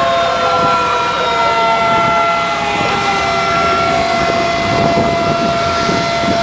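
Sirens sounding together, one held at a steady pitch while others slowly fall, over a steady rush of fireboat water spray and engines.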